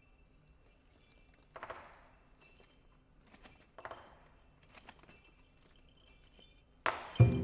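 Lion dance percussion in a lull: two soft cymbal strikes about two seconds apart, each ringing out, with a few faint taps between. Near the end the drum and cymbals crash back in loudly.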